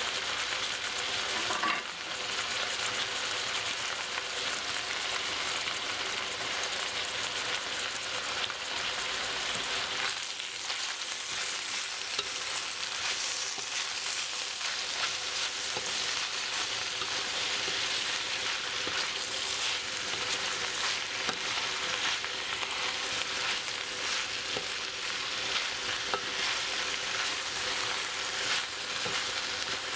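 Napa cabbage, meatballs and vegetables sizzling in a hot metal wok while being stirred and tossed, a steady frying hiss with light irregular clicks from the stirring. The stir-fry is at the stage where the green cabbage leaves have just gone in to wilt.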